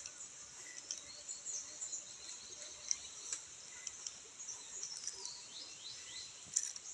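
Outdoor ambience: a steady high-pitched insect drone with scattered bird chirps, and a few short falling bird calls about five to six seconds in.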